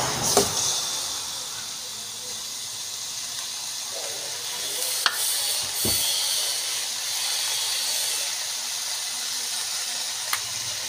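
Pork rib curry sizzling with a steady hiss in an aluminium pot over a gas burner, with a metal spoon clinking against the pot a few times as it is stirred.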